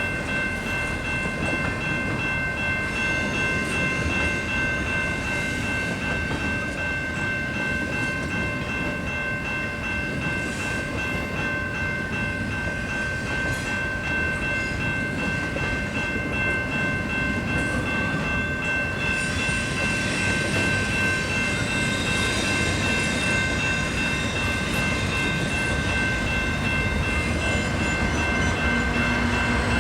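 CP intermodal double-stack freight train rolling past: a steady rumble of cars on the rails with a continuous high-pitched whine over it, growing a little louder and brighter after about twenty seconds.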